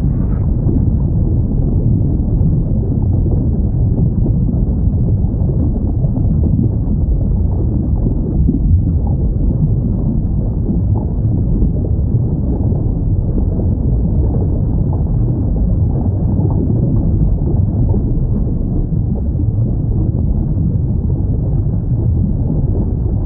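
A steady, muffled, deep underwater rumble with no distinct whale call standing out.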